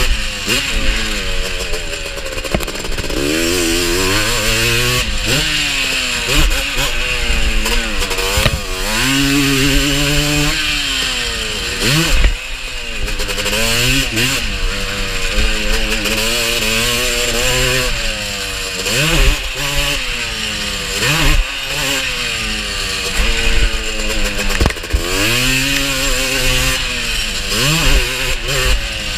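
Honda TRX250R quad's two-stroke single-cylinder engine revving high and falling back again and again as it is ridden hard around a dirt track, with a few sharp knocks along the way.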